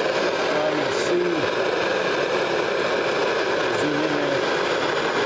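Handheld gas torch burning with a steady, even roar as its flame heats a rusted lug nut on a trailer wheel to break it loose.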